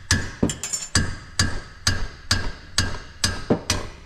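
Hammer blows on steel, struck in a steady rhythm of about two a second, each with a short metallic ring. The blows are hammering loose a seized front brake caliper bracket bolt on a Subaru Impreza.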